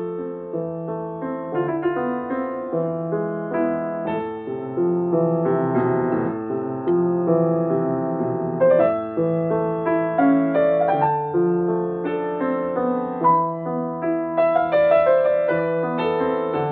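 Solo piano piece played on an upright piano, a stream of melody notes ringing over held lower chords.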